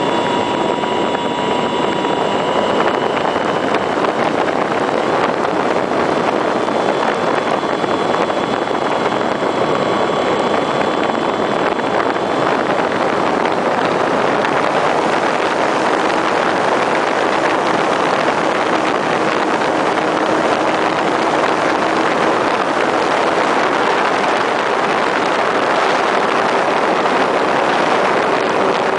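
Onboard sound of a Parkzone T-28 electric model plane in flight: the Hobbyking motor on a 4S battery and propeller running under a steady rush of air over the camera. A faint high whine shows through in the first dozen seconds.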